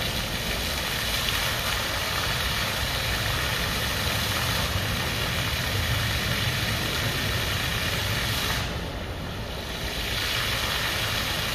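Water from a multijet floor-level fountain splashing steadily onto the paving as its jets play. About nine seconds in the splashing briefly quietens and loses its hiss, then comes back.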